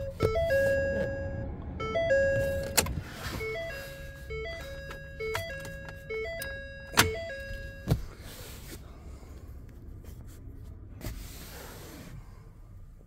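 Ford F-550 dashboard warning chime with the key switched on, a repeating electronic tone pattern that stops about eight seconds in. A few sharp knocks come through it, the loudest about seven seconds in.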